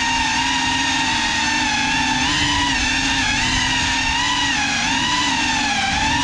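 GEPRC CineLog 35 cinewhoop drone on 6S, its motors and ducted propellers whining steadily, the pitch wavering up and down every second or so as the throttle changes in flight.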